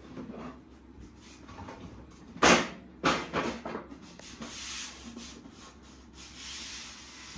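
Folding metal camp table turned right way up and set down on its legs on a wooden floor: a loud clatter about two and a half seconds in, then a few smaller knocks. After that, hands slide and rub across the tabletop.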